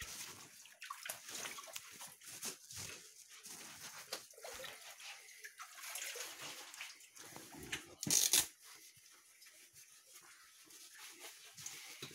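Irregular footsteps, scuffs and scrapes of someone moving over wet rock, with a brief louder rush of noise about eight seconds in.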